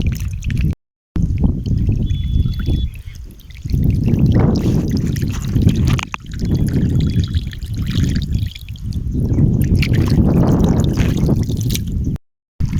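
Water trickling and splashing in uneven surges, heavy in the low end. There are two brief cuts to silence, about a second in and near the end.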